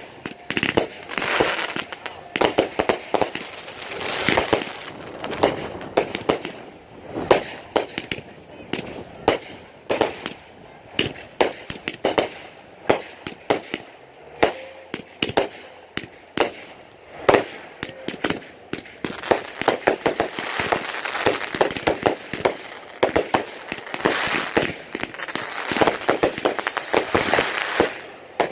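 Fireworks going off in a rapid run of sharp bangs and crackles, growing into dense crackling over the last third.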